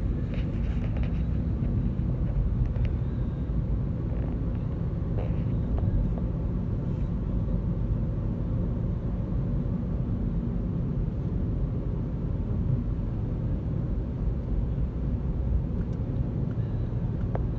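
Steady low rumble of a moving car heard from inside its cabin: engine and road noise while driving in traffic.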